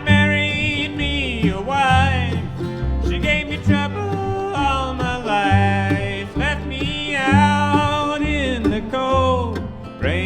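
Bluegrass band playing: banjo, guitar and mandolin over a bass line that moves note by note, with a lead melody that slides up into each phrase.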